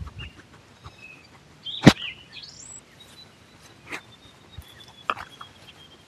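Birds chirping, with a quick rising call a little after two seconds in. A few sharp knocks come through as well; the loudest, about two seconds in, is the loudest sound here.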